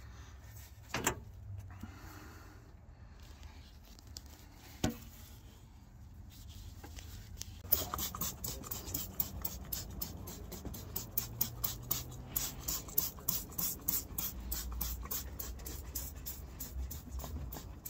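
Quick, rhythmic rubbing strokes, several a second, starting about eight seconds in. Before that come a couple of single knocks.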